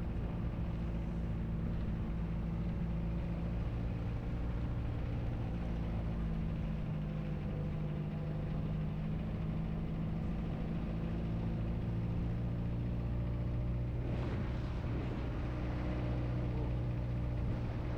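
Car engine running steadily with an even hum, with a brief noise about fourteen seconds in.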